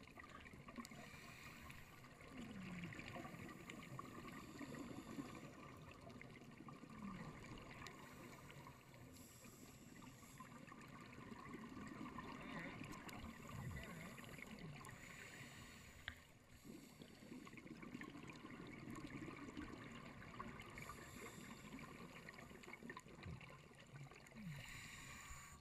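Faint underwater sound of a scuba diver's exhaled bubbles gurgling, swelling and fading every few seconds with the breathing.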